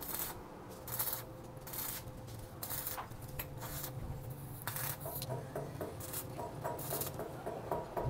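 Short scraping strokes of a hand tool on a hard surface, repeating roughly once a second and irregularly, over a low steady hum.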